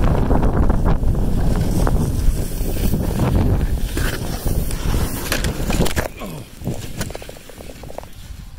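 Wind buffeting the phone's microphone as the filmer slides fast down a ski slope. About six seconds in the rush drops away to quieter rustling and handling knocks as the filmer wipes out in the snow.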